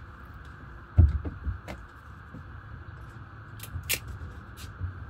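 Hand tools and wires being handled: a dull knock about a second in, then scattered light clicks, two sharper ones shortly before the end.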